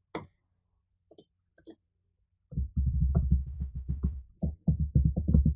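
A few computer mouse clicks, then from about two and a half seconds in a rapid run of keyboard keystrokes, about six a second.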